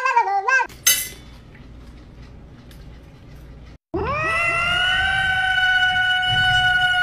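A short snatch of singing cuts off, then after a quieter stretch a cat lets out a long, high, steady yowl, beginning about four seconds in and held without a break.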